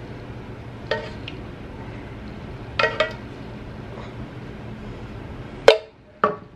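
A spoon clinking against the ceramic baking dish and the saucepan while enchilada sauce is spooned over the layers: a single clink about a second in, two quick ones near three seconds, and the loudest near the end followed by two more, each with a short ring. A low steady hum runs underneath.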